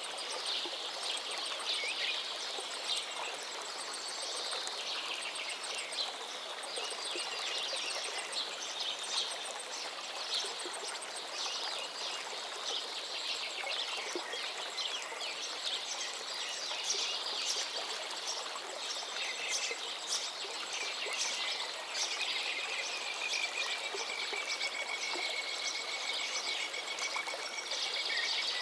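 Birds chirping and calling: a dense, overlapping chorus of short high-pitched chirps over a steady background hiss, with one long, slightly falling whistled note near the end.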